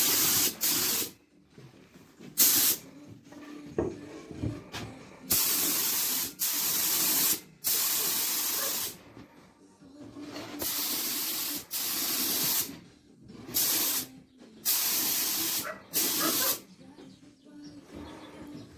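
Paint being sprayed in about eleven short bursts of hiss, each lasting up to about a second and a half, with brief pauses between passes.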